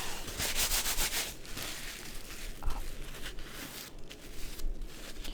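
Bristles brushed against the microphone: a quick run of scratchy swishing strokes near the start, then slower, softer rubbing.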